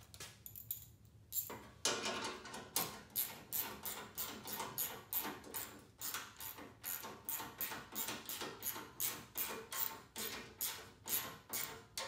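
Ratchet wrench clicking in quick, even strokes, about three a second, starting about a second and a half in, as bolts are tightened.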